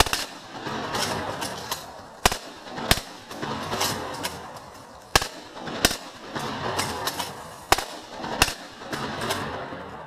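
Two 12-gauge pump-action shotguns, a Remington 870 and a Mossberg 500, firing repeatedly: about seven sharp shots, mostly in quick pairs well under a second apart, with roughly two seconds between pairs.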